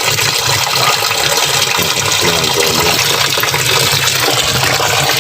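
Water running steadily into a washing machine tub as it fills from the supply hose.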